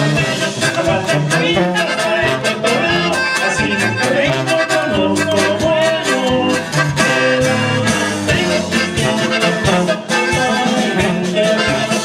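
Regional Mexican band playing with accordion and a lead singer: a steady, upbeat song.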